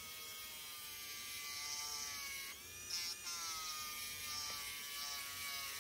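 Small corded rotary tool running continuously, spinning a titanium edge-burnishing bit against a leather edge: a steady, faint, high motor whine whose pitch dips briefly about two and a half seconds in, then recovers. The owner says the tool is near the end of its life.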